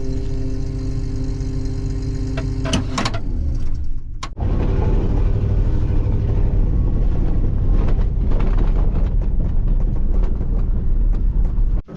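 Heavy engine of harvest machinery running steadily with a constant pitch. About four seconds in it cuts abruptly to a louder, rougher low rumble that carries on to near the end.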